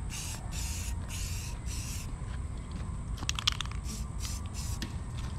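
Aerosol can of Krylon Fusion gloss white spray paint hissing in short bursts, about four quick sprays in the first two seconds, then a few sharp clicks and more short sprays.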